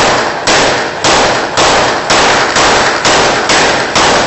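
Repeater (pump-action) shotgun being fired in quick succession in celebratory firing. There are about nine loud shots, roughly two a second, and each rings out briefly before the next.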